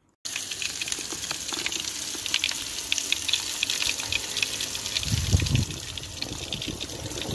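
Beef burgers sizzling on a barbecue, a steady crackle of spitting fat full of tiny pops that starts abruptly. A low rumble joins briefly about five seconds in and again near the end.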